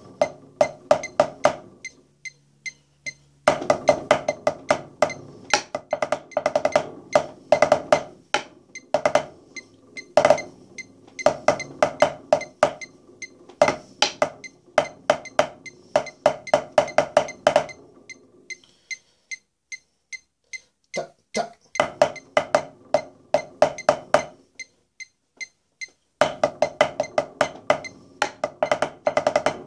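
Drumsticks played on a drum practice pad: fast runs of crisp, slightly ringing strokes in phrases, with short pauses about 2 seconds in and twice in the second half.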